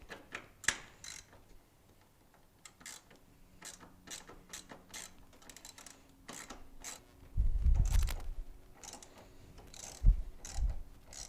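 Ratchet wrench clicking in short runs as it backs out the 10 mm bolts holding a wiper motor assembly. A heavier thump and rumble comes about two-thirds of the way through, and two knocks follow near the end.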